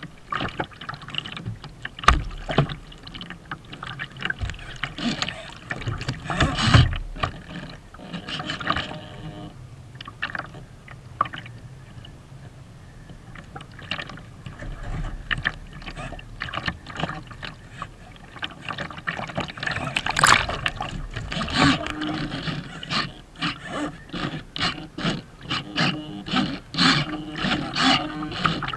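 Rough water slapping and splashing against the hull of a radio-controlled Kyosho Seawind sailboat, heard from on board, with many irregular sharp knocks and splashes.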